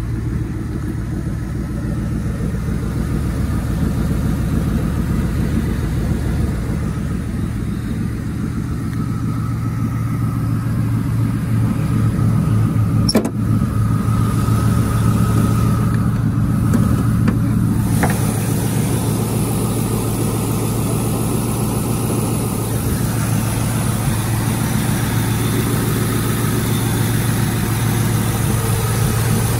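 Ford Mustang's 4.6-litre V8 idling steadily. A sharp click comes about halfway through, and a softer knock a few seconds later.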